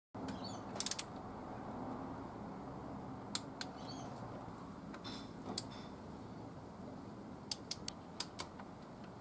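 Hand socket ratchet clicking on the valve cover bolts of the engine: a few scattered clicks, then a quick run of about six clicks near the end, over a steady low background hiss.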